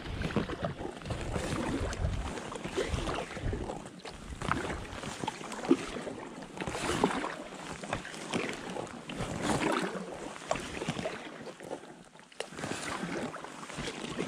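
Paddle strokes in the water beside a packraft, a swell of splashing and dripping every second or two. One sharp knock about six seconds in.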